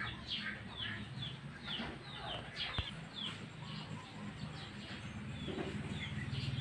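A bird chirping repeatedly: a quick run of short, falling chirps, about three a second, that thins out after about four seconds, over a faint low steady hum.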